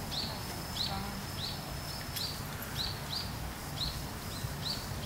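A small bird calling over and over: short high chirps that fall in pitch, repeated about every half second.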